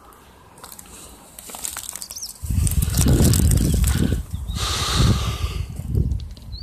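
Low, uneven buffeting of handling and wind noise on a phone microphone while walking through grass, with rustling of the vegetation, starting about two and a half seconds in. A faint high bird chirp sounds just before it.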